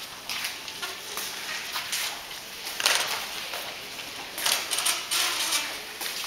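Rustling handling noise, as of fabric rubbing over the recording device's microphone, coming in irregular bursts, the loudest about three seconds in and another run about halfway through.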